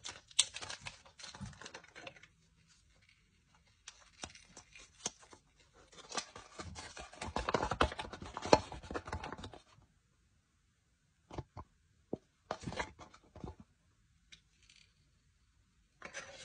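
Foil and plastic wrapping crinkling and tearing as a chocolate surprise box and its toy packet are opened by hand. It comes in bursts, loudest about halfway, with a few short sharp clicks later on.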